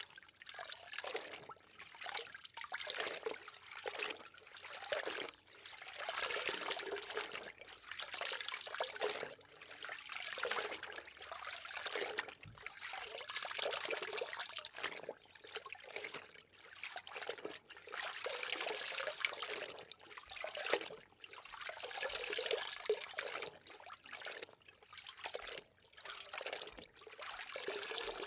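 Water trickling and splashing in repeated surges a second or two long, with short breaks between them.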